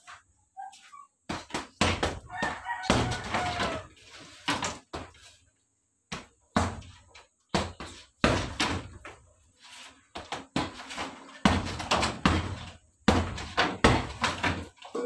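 Gloved punches landing on a hanging heavy bag in quick flurries of thuds, with short pauses between combinations.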